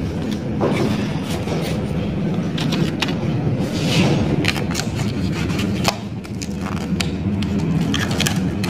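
Hands working enamelled copper winding wire into the insulated slots of an electric motor stator during rewinding: rustling of slot insulation paper with scattered sharp taps and clicks, over a steady low hum.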